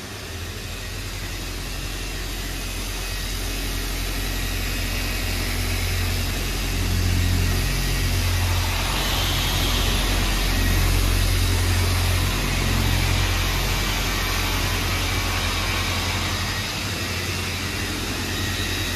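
Handheld electric car polisher running steadily with a low hum as its foam pad works over a car's painted bonnet during paint correction before ceramic coating.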